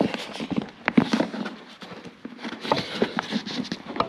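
Irregular small clicks, knocks and rattles of hands working at a hose under a motorcycle's plastic airbox, with the plastic housing being handled. One sharper knock comes about a second in.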